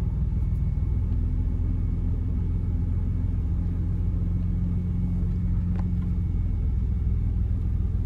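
Steady low engine and road rumble heard from inside the cab of a vehicle driving along a dirt road.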